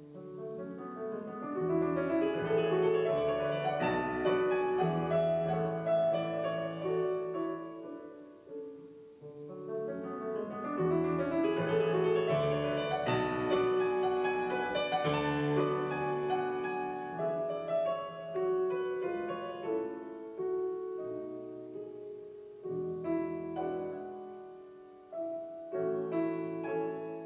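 Piano music playing over Wolf von Langa Son loudspeakers, driven by an Aries Cerat tube system and picked up by the camera's microphone in the room. It comes in two swelling phrases, then grows softer, with a few louder chords near the end.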